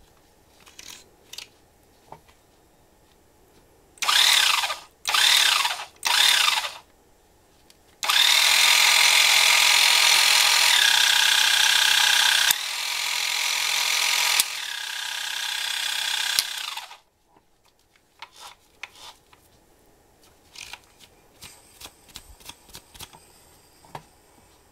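Miya Epoch 440 electric fishing reel motor run in three short bursts, each whine rising and falling, then run for about nine seconds, its pitch and level stepping down partway through before it stops. Soft clicks of the reel being handled come before and after.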